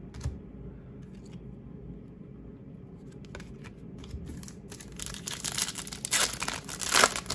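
Foil wrapper of a trading-card pack being torn open and crinkled, a few light clicks at first and then a loud run of tearing and crackling from about five seconds in, loudest near the end.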